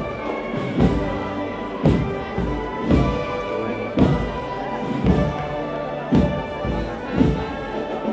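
Procession band playing a slow march: held notes over a bass drum beat about once a second.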